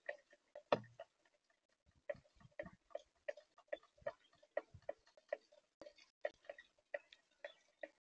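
Female northern cardinal pecking at and cracking seeds on a plastic feeder tray: a run of short sharp clicks, two or three a second, with a heavier knock about a second in.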